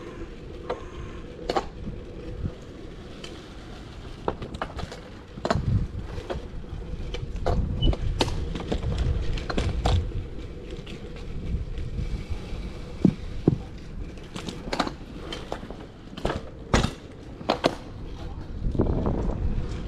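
Road bike rolling over rough paving, heard from a chest-mounted camera: a steady low tyre rumble with irregular sharp clicks and knocks as the bike rattles over bumps, thicker for a few seconds near the end.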